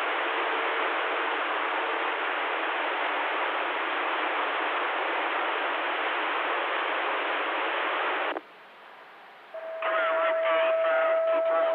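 CB radio receiver hissing with band static between transmissions. About eight seconds in the hiss cuts out for a second. Then a weak distant signal comes in, garbled speech under a steady whistling tone.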